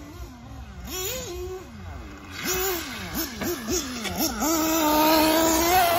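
Radio-controlled off-road car's motor whining, its pitch swooping up and down in quick throttle blips, then held high and steady for the last second or so at full throttle, with a hiss of tyres on loose dirt.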